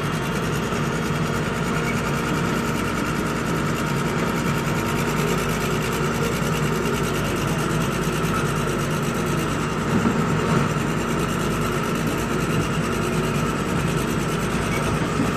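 Heavy diesel engine of an excavator running steadily under load as its bucket pushes a vibratory roller compactor up a dirt slope.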